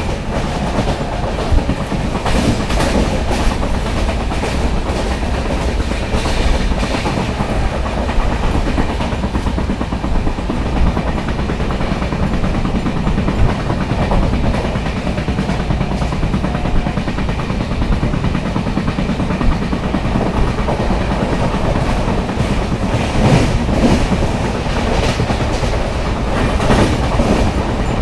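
LHB passenger coach running at speed, its wheels clattering on the rails with clusters of sharp knocks, heard from beside the coach. The knocks are the flat-wheel sound the uploader names for this run.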